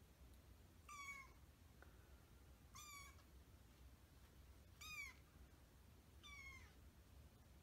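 Munchkin kitten meowing four times: short, high-pitched mews, each dropping in pitch at its end.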